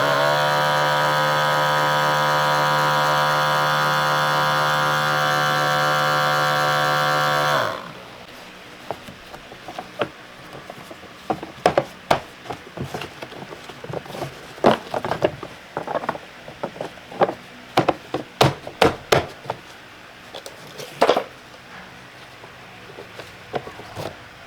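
A small motor runs steadily with a whine for nearly eight seconds, then is switched off and winds down. Scattered sharp clinks and knocks of tools being handled follow.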